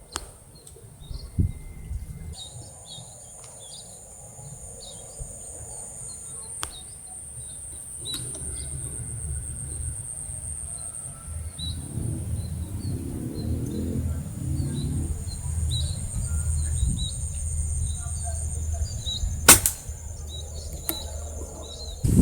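Small birds chirping in short repeated calls over a steady high insect buzz. About three-quarters of the way through comes one sharp, loud crack, typical of an air rifle firing at the birds. A low rumble of handling or movement noise builds under it.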